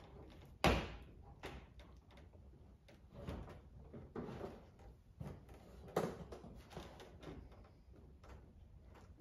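A series of irregular knocks and clunks from refitting the car's front bumper. The loudest is a sharp thump just under a second in, with another strong knock at about six seconds.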